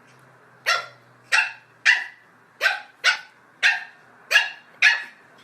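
A dog barking: about eight short, sharp barks in a row, one every half second or so.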